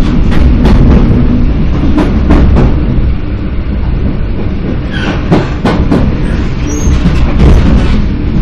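EN57 electric multiple unit heard from inside, running along the track. There is a loud, steady rumble, broken by sharp wheel clacks over the rail joints that come in quick groups of two or three.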